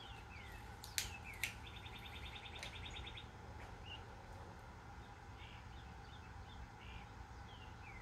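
Birds chirping: short falling calls and a rapid trill over a faint steady low hum. Two sharp clicks, about a second in and half a second later, are the loudest sounds.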